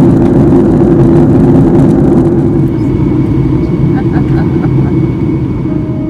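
Jet airliner in flight heard from inside the cabin: a steady rush of engine and air noise over a deep hum, easing off a little in the second half.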